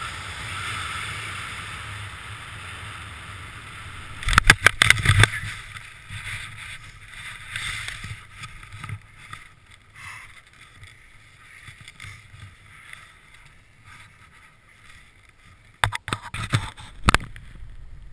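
Wind rushing over a skydiver's helmet-camera microphone under canopy, then a short cluster of loud thumps and scuffs about four seconds in as the skydiver touches down. Parachute fabric and lines rustle afterwards, with a few sharp knocks near the end.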